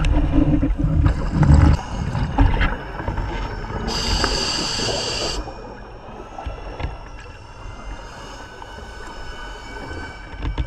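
Scuba diver breathing through a regulator underwater: a loud rumble of exhaled bubbles in the first two seconds, then a hissing inhalation about four seconds in. Faint steady whining tones run underneath.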